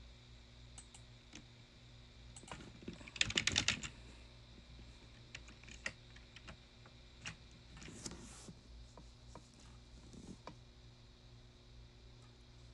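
Faint typing on a computer keyboard: scattered key taps with a quick flurry about three seconds in, which is the loudest part, and another about eight seconds in, over a steady low hum.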